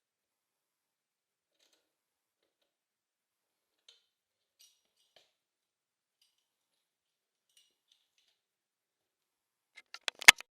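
Near silence with a few faint scattered ticks, then near the end a quick run of five or six sharp clicks, the last one loudest.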